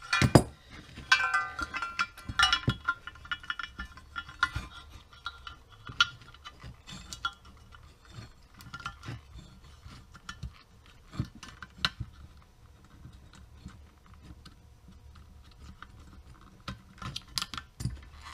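Clinks and knocks of a motorcycle's powder-coated metal headlamp bracket and finned regulator rectifier being handled and fitted together. The clicks are busiest in the first few seconds and pick up again near the end.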